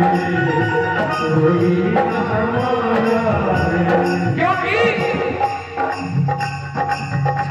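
Live devotional bhajan music: sustained keyboard tones over a dholak hand-drum rhythm.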